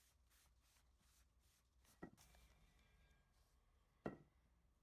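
Faint rhythmic rubbing, about three strokes a second, as a paper towel wipes excess wood stain off a wooden stock. It stops after about a second and a half, and then come two light knocks on the table about two seconds apart, the second louder.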